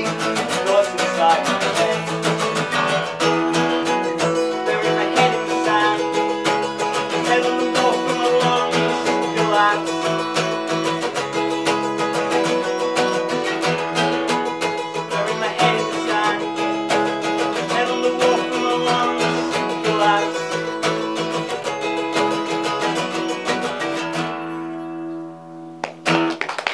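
Two steel-string acoustic guitars strummed together in a steady, driving rhythm. About 24 seconds in, the strumming stops on a final chord that rings and fades out.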